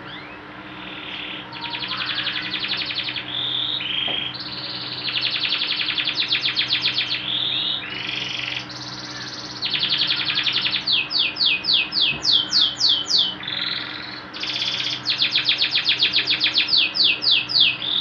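Canary singing a continuous song of rapid trills, each phrase a fast run of repeated notes that gives way to a new phrase every second or two, with a run of quick falling notes just past the middle.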